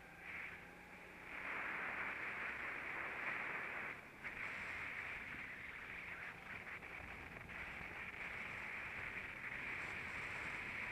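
Go-kart running on track, heard from a camera mounted on the kart: a steady rushing hiss of wind and engine that dips briefly about four seconds in.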